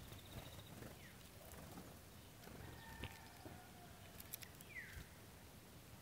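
Faint clicks and taps of a sparrow feeding at a tube bird feeder. Two short falling chirps from small birds come about a second in and near the end, over a quiet outdoor hiss.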